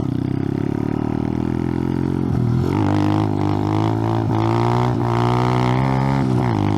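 Icebear Champion 125cc single-cylinder mini-bike engine running steadily, its pitch stepping up slightly about two and a half seconds in, with a few brief dips.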